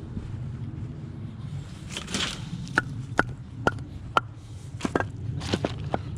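Split hardwood firewood being stacked: a run of about seven sharp wooden clacks as logs knock onto one another, some with a brief ring, with a scraping rustle of bark between them.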